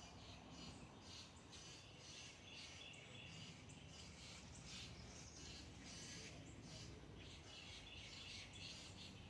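Faint, repeated bird chirps over low background noise.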